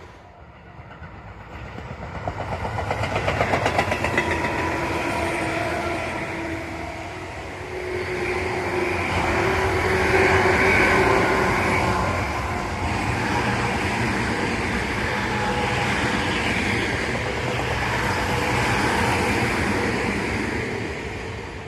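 Tobu Tojo Line electric train running past, growing louder over the first few seconds, with rhythmic wheel clatter over the rails and a steady whine from its motors.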